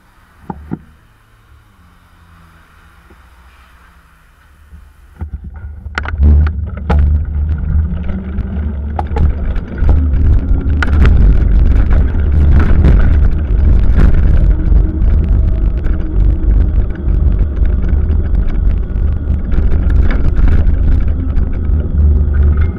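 Bicycle-mounted camera picking up road rumble and rattling: fairly quiet with a couple of clicks while the bike waits at a stop, then about five seconds in a loud low rumble with constant rattling clicks once the bicycle gets moving along the road.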